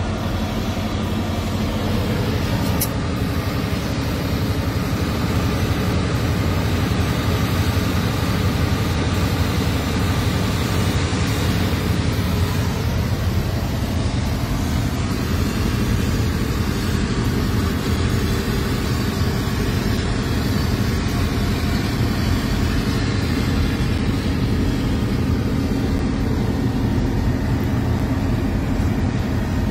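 Heavy diesel engines running steadily, a constant low drone with no change in pitch.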